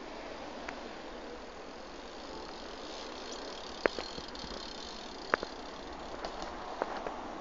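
Sharp knocks of a BMX bike's tyres and frame hitting a concrete ledge as the rider hops along it, three of them about a second and a half apart in the second half, over steady outdoor background noise.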